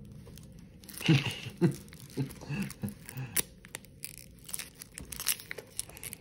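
Clear protective plastic film being peeled off the steel bracelet and clasp of a new Seiko Samurai watch: crinkling and crackling plastic with scattered sharp clicks of handling.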